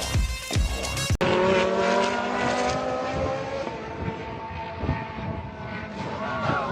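Electronic music with a heavy beat for about the first second. Then a sudden cut to a car driving, its engine running at high, fairly steady revs.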